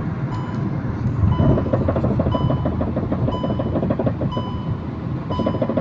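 Rapid, rhythmic knocking from a car's left front wheel hub, over a low rumble: the hub nuts have been loosened, a dangerous fault that can let the wheel come off. A short electronic beep repeats about once a second.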